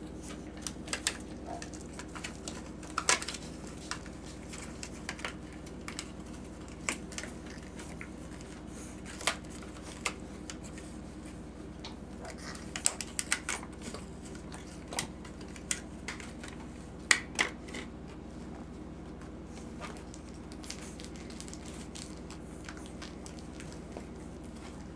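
Puggle puppies playing, making scattered sharp clicks and taps, with the loudest about three seconds in and a quick pair about 17 seconds in, over a steady low hum.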